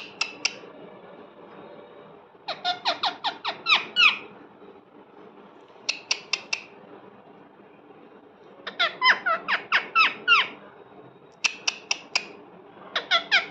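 Pet parrot giving bouts of rapid, shrill squawks, about five notes a second, with short pauses between the bouts.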